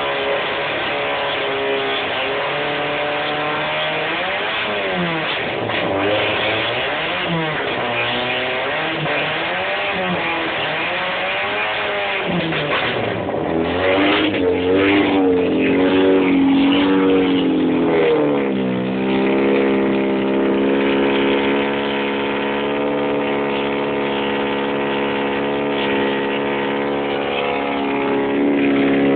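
Opel Manta's four-cylinder engine being revved up and down repeatedly. For the last ten seconds or so it holds at a steady speed.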